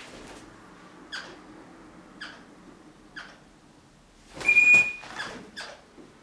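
Crimson rosella giving short sharp chirps about once a second, and one loud shrill screech with a whistling tone about four and a half seconds in: defensive calls at a hand reaching for the sock it is guarding.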